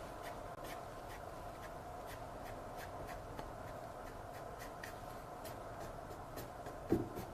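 Paintbrush gently tapping and stroking on a canvas, blending oil paint upward: soft irregular ticks, about two to three a second, over a steady hum, with one dull knock near the end.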